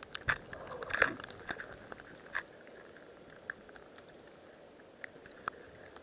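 Sea water heard underwater from just below the surface: scattered sharp clicks and crackles over a faint steady hiss, busiest about a second in, then a few isolated clicks.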